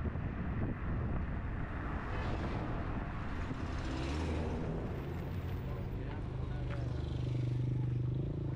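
Car driving along a road: a steady low engine and road rumble with tyre hiss, growing a little louder near the end.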